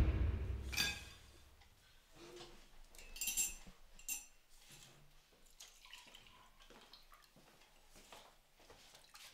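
Cups and dishes clinking a few times on a kitchen counter, then coffee being poured from a glass carafe into a ceramic mug near the end. It opens on the fading tail of a louder low sound.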